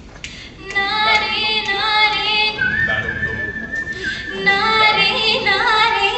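A cappella vocal group singing in close harmony, the chord of voices coming in just under a second in. A high female lead voice enters over the harmonies about halfway through, holding and bending long notes.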